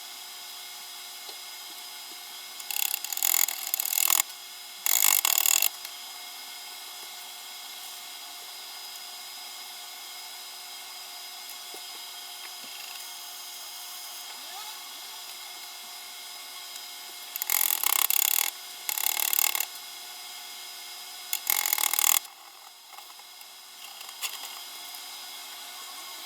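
Five short bursts of electric arc welding, a harsh crackle that starts and stops abruptly, each lasting about a second: tack welds joining steel pieces. Two come a few seconds in and three come in the second half, over a steady hum.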